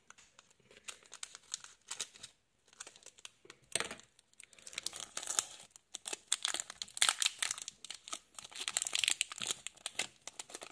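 Foil Pokémon booster pack wrapper crinkling and tearing as hands work it open: a run of crisp crackles that gets busier from about four seconds in.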